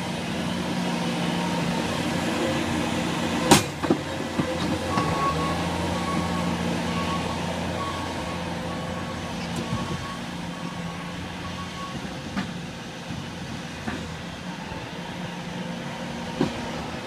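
Skid-steer loader engine running steadily under load while grading dirt, with a sharp knock about three and a half seconds in. From about five seconds in, a backup alarm beeps about twice a second for several seconds as the loader reverses.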